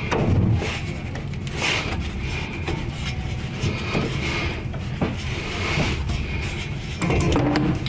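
Hands rubbing and scraping against a car's underbody and oil filter while trying to twist the filter off by hand: rough rubbing throughout, with scattered small knocks.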